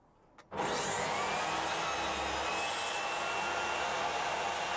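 Stationary circular saw (table saw) switched on about half a second in and running steadily at full speed, with a faint high whine over its even noise.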